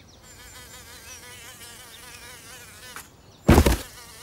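Cartoon fly buzzing with a wavering pitch for about three seconds, then a short loud crash about three and a half seconds in as the cardboard box collapses.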